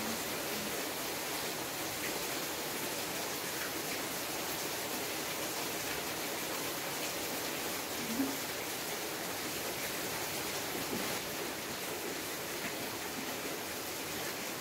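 Steady rain falling, heard as an even, unbroken hiss through a phone's microphones. A brief low sound stands out once, about eight seconds in.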